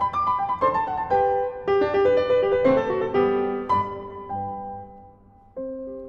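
Background solo piano music, single notes and chords ringing and fading; it dies away briefly about five seconds in, then starts again.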